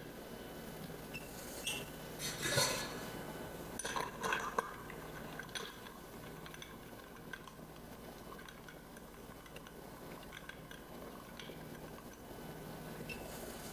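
Bar spoon stirring large ice cubes in highball glasses: ice and spoon clinking against the glass, chilling the spirit and juice. The loudest clinks come in the first few seconds, then only soft scattered ticks.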